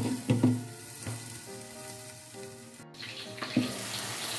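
Winged beans sizzling as they fry in a stainless steel pot. Near the start a glass lid is set on with a few knocks and the sizzle goes quieter and muffled; near the end the sizzle is louder again with another knock.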